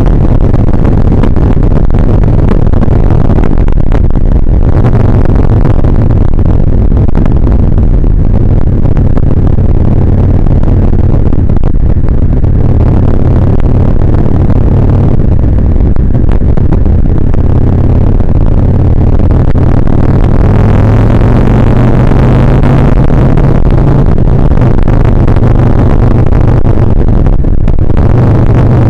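Loud, steady running of a Kawasaki Vulcan 1600 Nomad's V-twin engine while riding in traffic, with the revs climbing about twenty seconds in as the bike accelerates.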